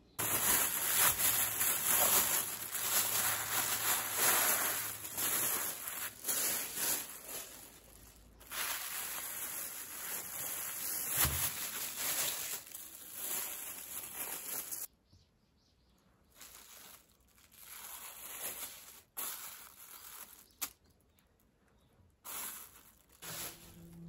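Thin plastic bag crinkling and rustling as it is pulled off a bundle of rice-cake sticks, loud and continuous for about fifteen seconds, then only a few softer rustles.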